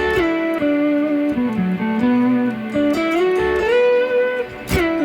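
Electric guitar (a Telecaster) played through a Strymon BigSky MX reverb pedal on a shimmer setting with freeze. Long sustained notes slide from pitch to pitch, with a sharp plucked note near the end. The shimmer octave layer is weak.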